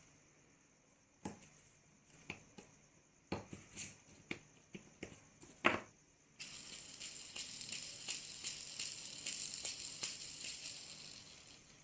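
Sharp metal clicks and knocks from handling parts of an old bearing, one louder knock just before the middle. Then a high, fine rattling hiss starts about halfway through and fades away near the end.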